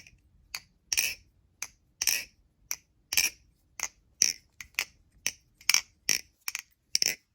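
NRB Vortex balisong being flipped: its handles clack sharply against the blade's tang at every open and close, a steady run of about two to three crisp clicks a second, some louder than others.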